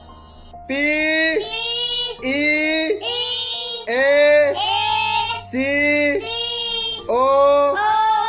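A child's high voice singing a run of short, drawn-out syllables that glide in pitch, over a steady low backing note. Soft electronic music fades out just before the voice starts, under a second in.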